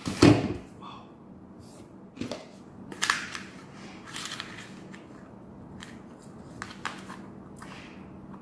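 A sharp knock about a quarter second in, the loudest sound, then scattered clicks and crinkles as the plastic parts of a 3M half-face respirator and the foil wrapping of its organic vapor cartridge are handled.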